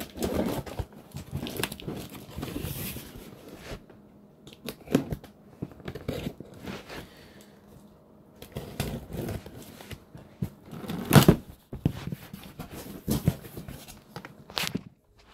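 Cardboard box and plastic packaging being opened and handled: irregular tearing and crinkling with scattered knocks, the loudest knock about two-thirds of the way through.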